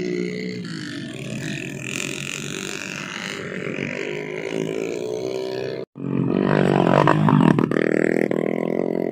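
Small trail motorcycle engines running. The sound cuts out abruptly about two-thirds of the way in, then a louder, closer engine revs up and down.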